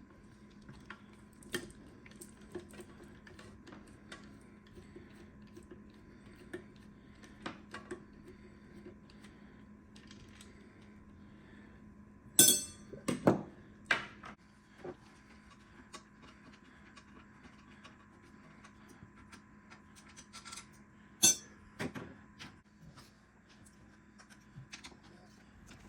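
Metal parts, screws and tools clinking and tapping while a KitchenAid stand mixer is taken apart. Scattered light clicks sit over a faint steady hum, with a cluster of louder metallic clinks about halfway through and one more a few seconds later.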